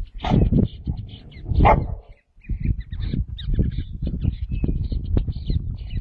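A dog barking, with two loud barks in the first two seconds, then a rapid run of lower barks. Small birds chirp in the background.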